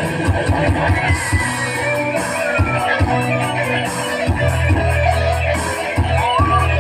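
Electronic keyboard playing amplified music through a PA, with a steady rhythmic beat and bass under a melody.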